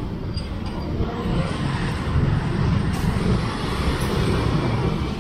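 Road traffic: motorcycles and cars running past, a steady low rumble.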